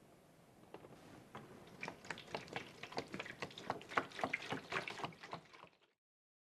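Liquid bubbling: a quick, irregular run of small plops that starts about a second in, grows busier, then cuts off abruptly near the end.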